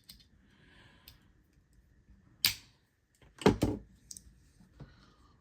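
Pocket multitools being handled, giving a few small clicks: a sharp click about two and a half seconds in and a louder clack about a second later.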